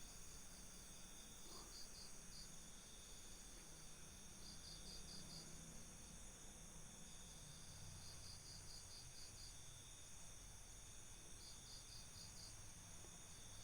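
Night insect chorus with a steady high trill. One insect chirps in short trains of about four to seven pulses, repeating every three to four seconds.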